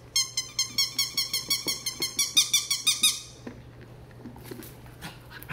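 Green spiky cube dog toy chirping after being pressed: a fast, even run of high chirps, about six a second, swelling in loudness and then fading out about three seconds in, followed by a few faint clicks.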